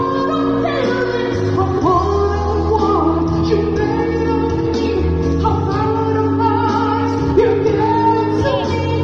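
A song: a singing voice over backing music with held chords.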